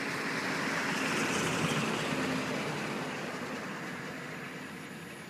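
A road vehicle passing by, its tyre and road noise swelling to a peak between one and two seconds in, then slowly fading away.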